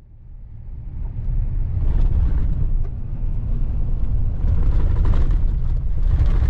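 Steady low rumble of a vehicle driving, fading in over the first couple of seconds.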